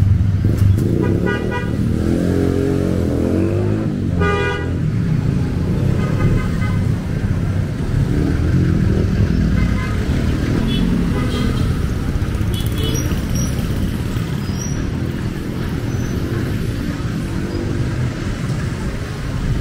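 Busy street traffic: motor vehicle engines running close by, with a few short horn toots, the clearest about four seconds in.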